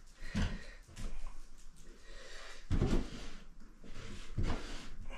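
Pipe and fittings being handled on a plywood floor: rustling and several soft knocks, the loudest about three seconds in.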